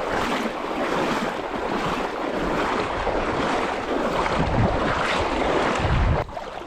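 Loud steady rushing of river water over a shoal, with wind buffeting the microphone; it cuts off suddenly near the end.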